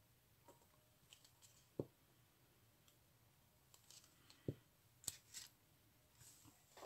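Near silence with a few faint, short clicks and taps from a plastic glue bottle being handled and opened.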